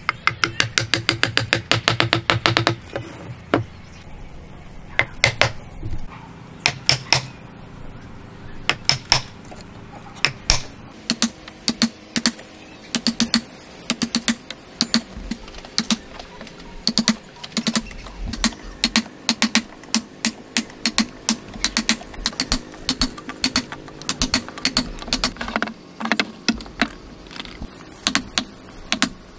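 A wood chisel being struck repeatedly to chop a mortise in a timber beam, splitting out chips. A fast run of light taps comes first, then a few scattered blows, and from about a third of the way in a steady series of blows, each with a short low ring.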